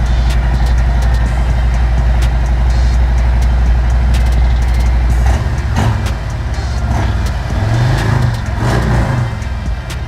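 Harley-Davidson V-twin engine running, a steady low idle that shifts about halfway through, then brief throttle blips with the pitch rising and falling near the end.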